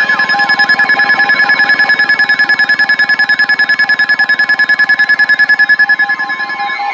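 Weather radio alert alarms sounding together: rapid pulsing beeps, about ten a second, over several steady tones, signalling an incoming severe thunderstorm warning. The pulsing stops near the end.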